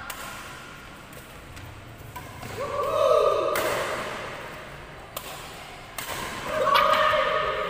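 Badminton rackets striking a shuttlecock in a reverberant hall: two sharp smacks about two and a half seconds apart, with a lighter tap between them. Each is preceded by a pitched squeal lasting about a second.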